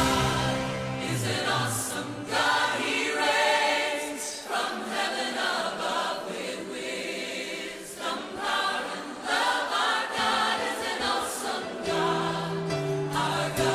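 Background Christian music with a choir singing. The bass drops out soon after the start and comes back near the end.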